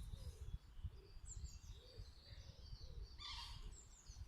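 Birds chirping in the trees: quick runs of short, high, falling chirps, with a louder call a little past three seconds in, over a low rumble.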